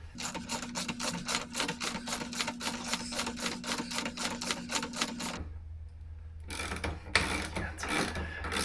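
Hand ratchet wrench clicking rapidly, about six clicks a second, for some five seconds as a fastener on the motorcycle's front end is turned, then stopping. A few irregular clicks and knocks of tool handling follow near the end.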